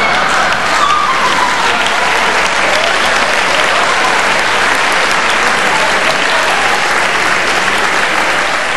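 Theatre audience applauding steadily after a stand-up comedian's punchline.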